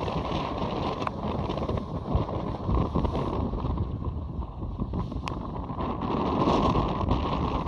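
Wind buffeting the microphone over a steady rush of wind and water aboard a small sailboat in rough seas.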